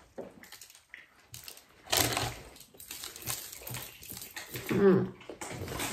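Close-miked chewing of a mouthful of veggie burger, with a louder noisy crunch about two seconds in and a short hummed 'mm' through a full mouth near the end.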